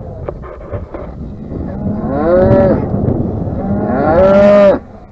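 Cattle mooing: two long calls that rise and fall in pitch, the second the loudest and ending suddenly, with a few short knocks in the first second.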